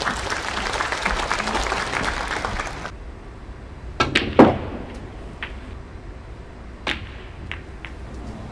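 Audience applause of many hands for about three seconds, cutting off. A second or so later come snooker ball clicks: the cue tip striking the cue ball, then sharp ball-on-ball and cushion knocks. A few fainter ball clicks follow near the end.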